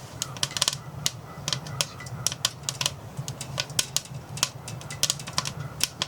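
Irregular sharp crackles and ticks, several a second, over a low steady hum.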